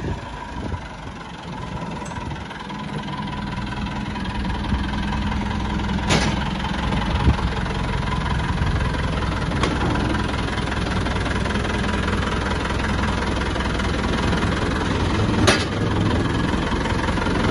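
An engine running steadily, growing louder over the first few seconds and then holding. Two sharp knocks come through, one about six seconds in and one near the end.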